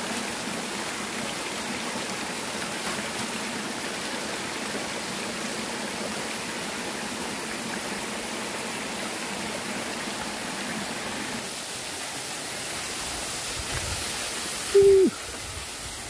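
Small waterfall spilling down a rock face, a steady rush of falling water. Near the end comes one short, loud tone that drops sharply in pitch.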